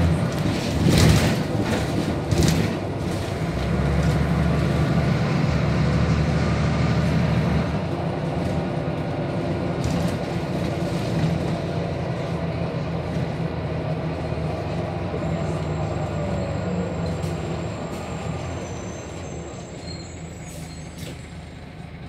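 Van Hool AG300 articulated bus heard from on board: the engine pulls with a steady drone and there are two loud clunks in the first few seconds. The engine then eases off at about a third of the way in, and the sound fades as the bus slows toward a stop.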